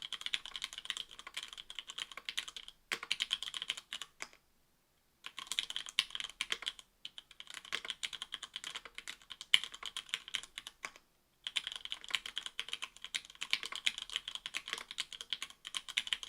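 Continuous typing on Cherry MX Black 60g linear switches, stock and unlubed, in an Octagon V3 keyboard with an aluminium plate and GMK keycaps. Fast runs of keystrokes come in bursts, with short pauses about four seconds in and again around seven and eleven seconds.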